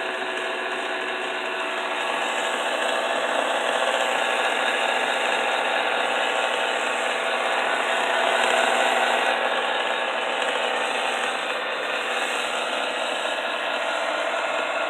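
Electric kitchen mixer running steadily: a continuous motor whine with several steady tones over a whirring hiss, swelling slightly around the middle.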